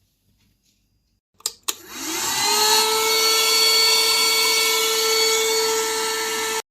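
Gemei cordless handheld vacuum cleaner: two clicks as it is switched on, then its motor winds up quickly to a steady, loud whine. It stops abruptly near the end.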